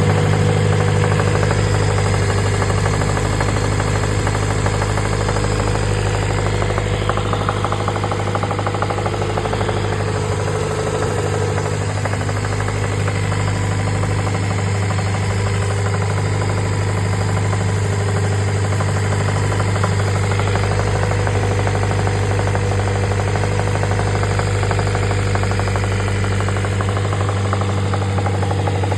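Honda B20B four-cylinder engine with a B16 VTEC head running steadily, with a weird noise in it that the owner wonders may be a knock.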